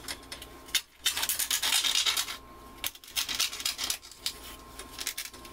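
Knife blade slitting the plastic film over a meat tray. About a second in there is a second and a half of scratchy, crackling rasping. After it come a few light clicks and crinkles as the plastic tray is handled.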